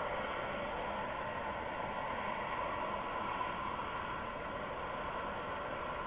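Steady hiss of outdoor night ambience on the camera's microphone, even throughout with no distinct calls, wing flaps or knocks.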